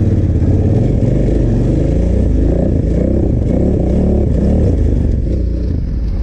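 KTM 990 Adventure's V-twin engine revving up and down under load, its pitch rising and falling repeatedly as the heavy bike is ridden through deep sand.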